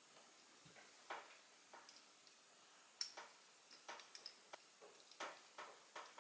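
Faint, irregular small clicks and ticks from a Torx driver starting a screw into a pocket knife's handle.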